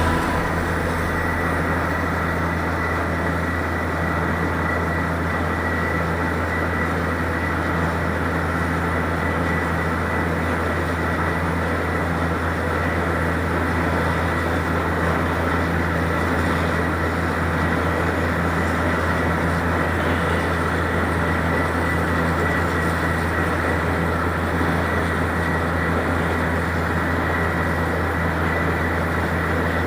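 Borewell drilling rig running steadily: a constant low machine drone with a thin, steady high whine over it.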